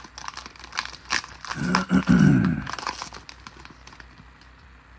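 A trading-card pack's foil wrapper crinkling and tearing as it is ripped open and the cards are slid out. A short wordless vocal sound from a man comes about two seconds in and is the loudest moment. The crinkling fades out in the last couple of seconds.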